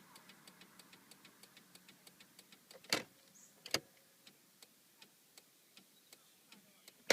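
1996 Holden VS Commodore's turn-signal flasher ticking steadily and faintly, used in place of the broken hazard lights. The ticks come faster at first and settle to about two or three a second, with louder clicks about three seconds in and again at the end.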